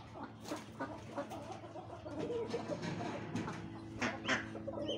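Chickens clucking, with a cluster of short calls about four seconds in.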